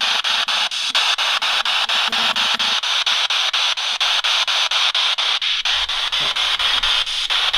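Handheld spirit box (ghost radio) sweeping through the radio band: a loud, steady static hiss chopped about six times a second, with short snatches of broadcast sound between the breaks.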